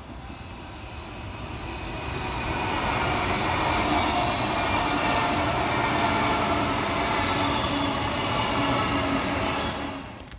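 A train passing close by: its noise builds over the first few seconds, holds steady, then cuts off abruptly near the end.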